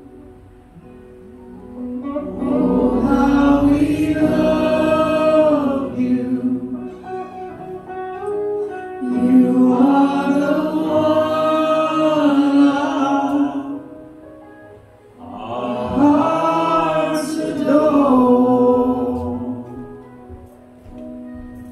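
A live worship band plays a slow gospel song. Several voices sing three phrases over guitar and keyboard, and the instruments hold a chord in the gaps between the phrases.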